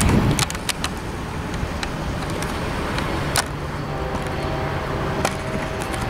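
Freight train cars of tank cars and covered hoppers rolling on the rails: a steady rumble with scattered sharp clicks. A faint steady whine joins about four seconds in.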